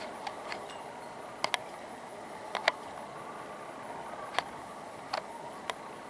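Insects in the trees trilling steadily, a faint high pulsing. Several sharp clicks stand out over it, some in quick pairs, the loudest about two and a half seconds in.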